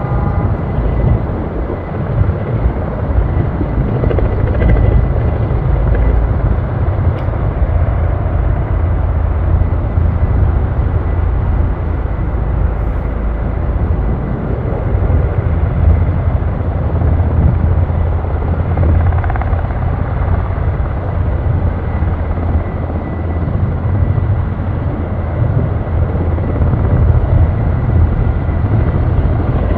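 KUH-1 Surion twin-turboshaft firefighting helicopter running steadily, its rotor noise loud and continuous.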